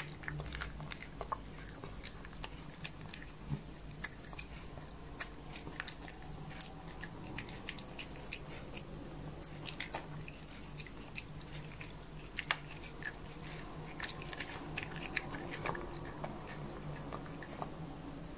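A domestic cat biting and chewing a sprinkle-covered food treat close to the microphone: many small, irregular crunches and wet clicks of its teeth and mouth, over a low steady hum.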